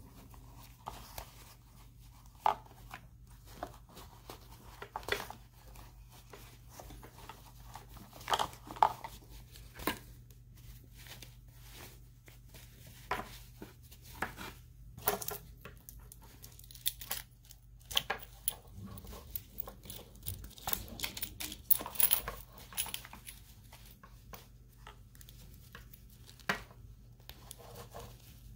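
Close handling noise as hands dress an action figure in a felt jacket and thread its cord lace: irregular fabric rustles with small taps and clicks, over a faint steady low hum.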